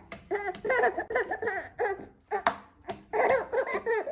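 Young girls laughing in repeated short bursts, with a sharp click about two and a half seconds in.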